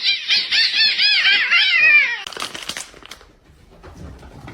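Cat meowing: a fast run of short, high meows, several a second, for about two seconds, then it goes quiet apart from a few faint clicks.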